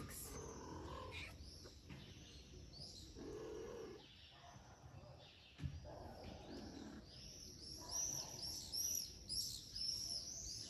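A cat meowing three times, each call about a second long, with small birds chirping repeatedly in the background; the chirping is busiest near the end.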